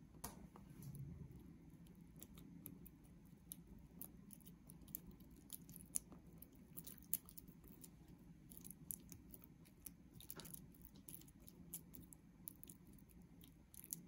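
Spatula pressing and stirring softened butter in a glass mixing bowl: faint, with many small sharp ticks and clicks against the glass over a low steady hum.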